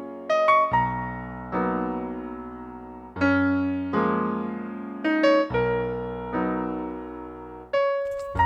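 Background music: slow electric piano chords, each struck and left to fade before the next.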